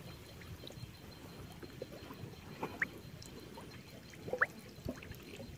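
Faint trickling and sloshing of water, with two short high chirps, one about two and a half seconds in and one about four and a half seconds in.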